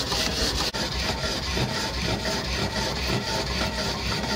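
A homemade Stirling engine running steadily, a rhythmic rubbing, swishing beat of a few strokes a second from its pistons and seals. There is no metallic knocking now that the hot pistons have been modified.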